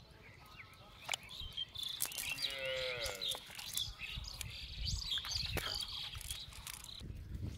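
A goat bleats once, a wavering call of about a second that starts a couple of seconds in and falls in pitch at the end, followed by faint high chirping.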